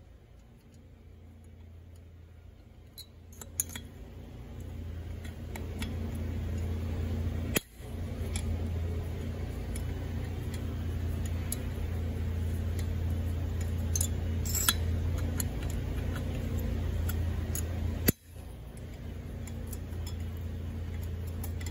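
A power driver turning a long hex extension to back out the cylinder bolts on an Echo PE-280 two-stroke engine, with a steady low motor hum. The hum stops briefly twice, with light metallic clicks throughout.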